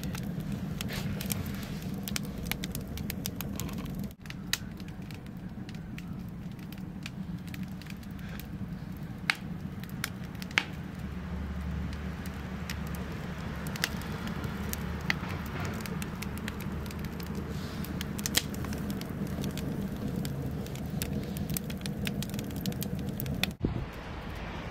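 Wood fire crackling and popping inside a cast refractory batchbox rocket burner, with scattered sharp crackles over a steady low rumble.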